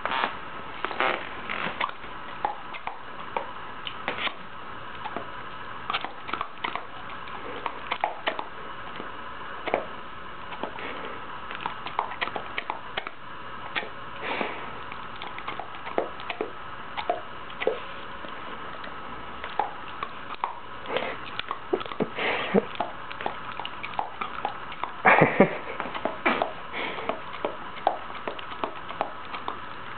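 An old dog sniffing and mouthing at dental floss tied around a finger: irregular snuffles and short wet clicks of its jaws, with a louder burst about 25 seconds in.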